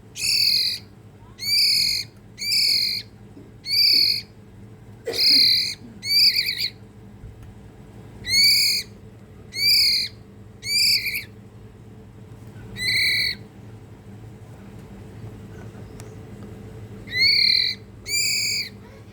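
A hand-fed young murai songbird giving about a dozen short, harsh begging calls at irregular intervals, with a pause of a few seconds near the end before two more.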